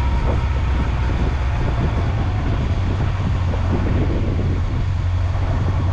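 Motorcycle riding at a steady cruising speed: a constant low engine drone under rushing wind and road noise.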